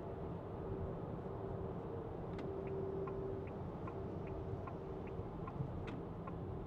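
Cabin noise of a 2024 Renault Grand Koleos hybrid on the move: steady road and tyre rumble with a faint steady hum. From about two and a half seconds in, the turn-signal indicator ticks evenly, about two and a half ticks a second, and stops shortly before the end.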